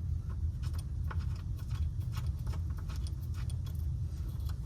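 Small metallic clicks and clinks of a hand tool turning in the shifter mounting bolts, irregular, over a steady low rumble.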